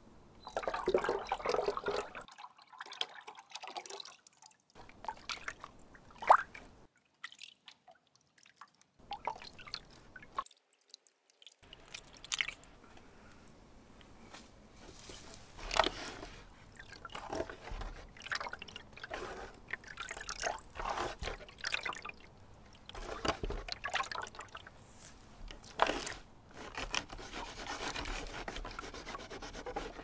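Water splashing, sloshing and dripping in a vat as paper pulp is poured in from a gourd bowl and a bamboo papermaking screen is dipped and lifted through it to form a sheet of traditional Korean paper, heard in short separate stretches.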